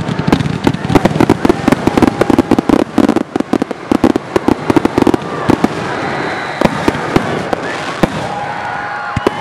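Aerial fireworks barrage: shells and comets firing and bursting in quick succession, many sharp bangs a second. After about five seconds it thins to a few reports over the crackle of burning stars.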